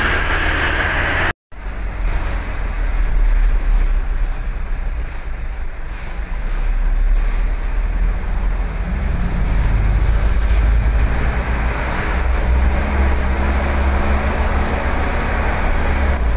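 A dump truck's diesel engine running steadily as the truck drives, heard from inside the cab with road noise. The sound cuts out for a split second about a second and a half in.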